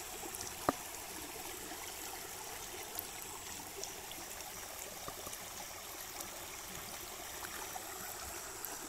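Steady trickling and lapping of water around a small boat and a fishing net, with one sharp click under a second in.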